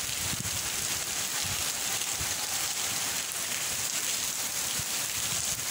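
Heavy rain falling steadily onto flooded paving and puddles, a continuous hiss of drops on standing water.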